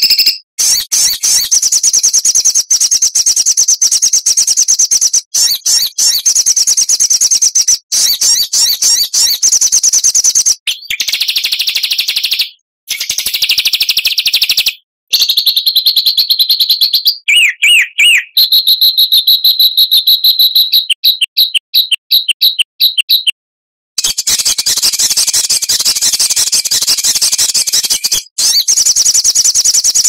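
Recorded songbird song used as a masteran tutor track for cage birds: loud, high, very rapid trills and chattering phrases. Midway it switches to a lower buzzy phrase and then to a run of separate rapidly repeated notes. After a short break near the end, the fast trilling resumes.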